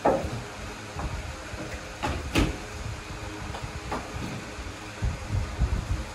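Hand brush being worked over rounds of stamped flatbread dough, soft irregular brushing strokes over a low rumble, with one sharp click about two and a half seconds in.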